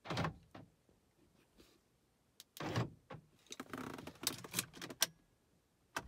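2007 BMW X3's central door locks clunking as the key fob's lock and unlock buttons are pressed: one clunk right at the start and another nearly three seconds in. About a second of clicking and rattling follows.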